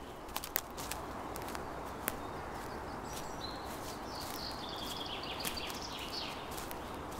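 Footsteps crunching along a leaf-littered woodland path in scattered steps, over a steady outdoor hiss. A bird calls a run of quick, high repeated notes in the middle.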